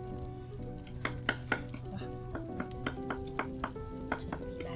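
Pork patties sizzling over charcoal in a wire grill basket, with a run of sharp crackles and ticks starting about a second in, over soft background music.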